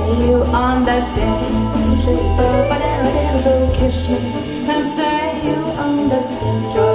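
A song with a singing voice over a steady beat and bass line.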